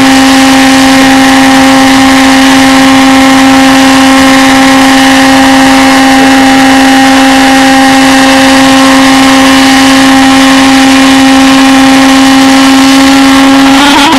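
Model pulsejet engine on a radio-controlled boat running continuously: a loud, steady drone that holds one unchanging pitch throughout.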